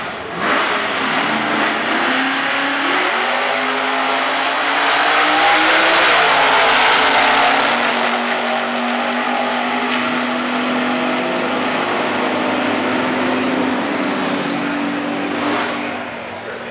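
Two 1960s super stock drag cars' V8 engines launching hard and accelerating down the strip, the engine note climbing and dropping back at each gear shift. Loudest around six to seven seconds in, then a steady high note fading away near the end.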